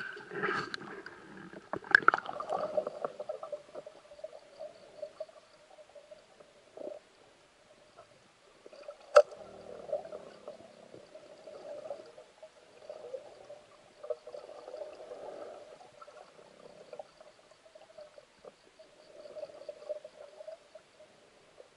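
Water splashing around a spearfisher as he submerges at the surface. After that comes muffled, wavering underwater noise heard through a camera's waterproof housing, with one sharp, loud knock about nine seconds in.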